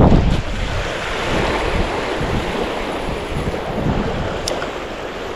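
Wind buffeting the microphone over small waves lapping on a lake shore, with a strong gust right at the start that then eases off. A light click about four and a half seconds in.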